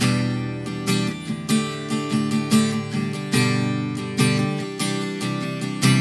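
Acoustic guitar strumming chords in a steady rhythm, picked up through a Stagg SDM70 dynamic instrument microphone as a sound test.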